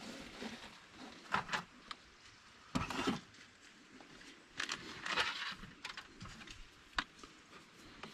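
Hands handling the metal pilot-filter housing of a John Deere 35G excavator, fingers picking at its old O-ring. There are a few short bursts of scraping and rustling and a sharp click near the end.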